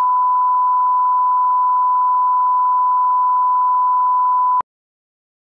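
Steady 1 kHz line-up test tone from a bars-and-tone leader, cutting off suddenly about four and a half seconds in.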